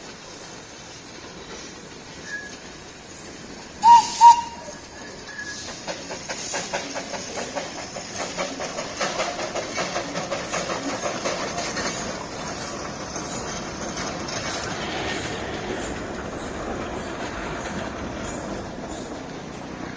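Toy train gives two short high-pitched toots about four seconds in, then runs past with a rhythmic clickety-clack of wheels over rail joints that is loudest in the middle and carries on at a lower level afterwards.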